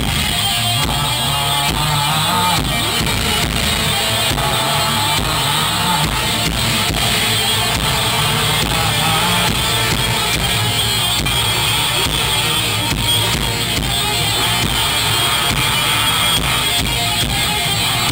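Live rock band playing loudly through a PA: guitars, bass and drum kit with a steady beat.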